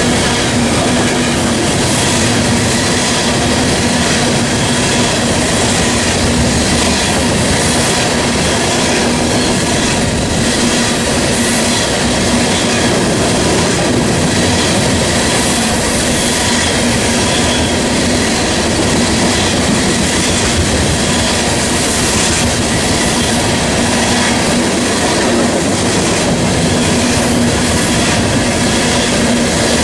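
Norfolk Southern freight train rolling past at a steady pace, its steel wheels clicking over the rail joints under a continuous rumble.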